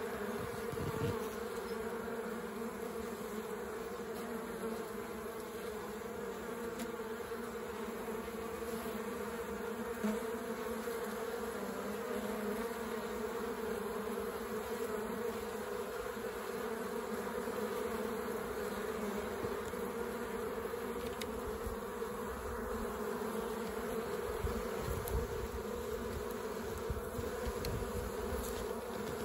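Honeybees humming steadily at the hive entrance as many foragers fly in, land and take off: a busy entrance during a pollen flow.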